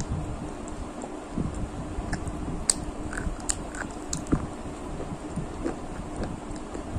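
Close-miked chewing and crunching of crispy fried food, with a few sharp crunches and mouth clicks in the middle, over a faint steady hum.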